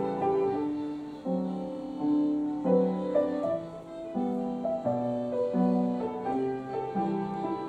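Upright piano played solo: a melody carried over sustained chords, note after note ringing on.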